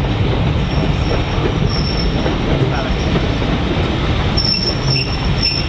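Railway passenger coaches rolling past at low speed: a steady rumble of wheels on the rails, with short thin high-pitched wheel squeals once about two seconds in and several times near the end.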